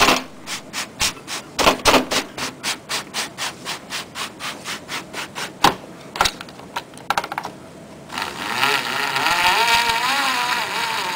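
BMW panorama sunroof glass-panel drive cable being worked out of its guide: a run of short scraping clicks, about three a second, as it is pushed back with a flathead screwdriver, a few loose clicks, then from about eight seconds in a continuous rasping slide with a wavering squeal as the cable is drawn out of its track.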